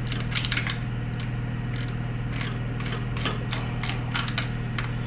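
Hand ratchet clicking in short, uneven runs as the fuel pump bolts are turned out by hand. A steady low hum runs underneath.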